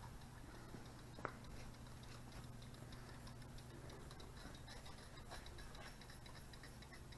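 Faint ticking of a ratchet wrench working a spark plug out of the engine, with one sharper click about a second in, over a low steady hum.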